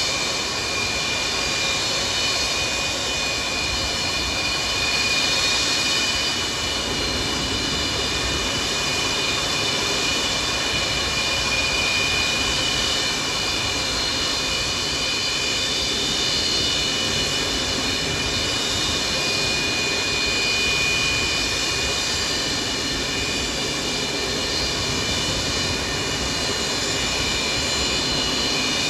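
The four Progress D-18T turbofans of an Antonov An-124-100 running at taxi power: a steady high-pitched whine over a broad rush.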